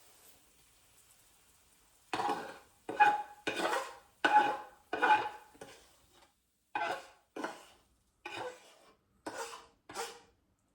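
A cooking utensil scraping and clanking against a pan as stir-fried bok choy and shiitake mushrooms are scooped out, about a dozen short strokes starting about two seconds in, some with a brief ring.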